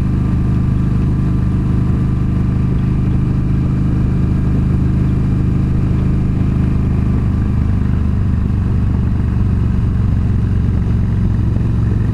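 Yamaha V Star 1300's V-twin engine running steadily at cruising speed, with the rush of the moving bike over it.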